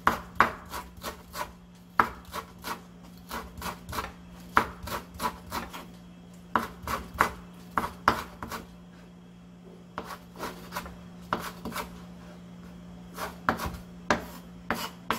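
Kitchen knife chopping Cheongyang green chili peppers on a wooden cutting board: runs of quick sharp knocks, about three to four a second, broken by short pauses. A steady low hum runs underneath.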